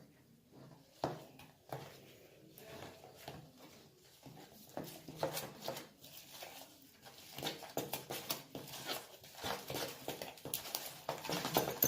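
Slime being stirred in a bowl with a spoon after borax solution has been added: irregular clicks and scrapes, sparse at first and busier and louder from about seven seconds in.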